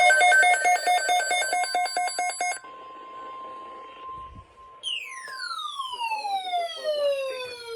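Emergency alert broadcast tones: a loud, rapidly pulsing warble of several high tones for about two and a half seconds, then a quieter steady single tone, then from about five seconds in a long tone sliding steadily down in pitch.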